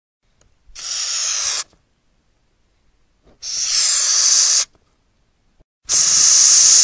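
Madagascar hissing cockroach hissing three times. Each hiss lasts about a second, made by forcing air out through its breathing spiracles, and they come about two and a half seconds apart with silence between.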